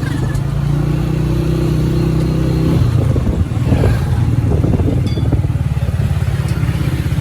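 A vehicle engine running: a steady hum for about the first three seconds, then a fast, even low pulsing.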